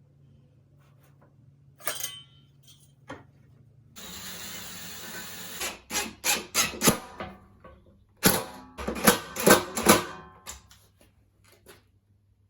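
Workshop noise of a thickness planer being set in place and screwed down onto a wheeled drawer cart: a steady whirring rasp for about a second and a half, then clusters of sharp knocks and clunks.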